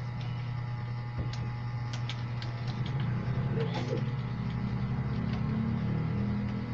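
Computer keyboard keys pressed sparsely, giving scattered single clicks, over a steady low electrical hum.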